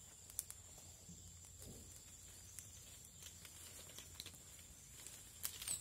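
Faint nighttime insect chorus: a steady high-pitched drone, with a few scattered soft clicks.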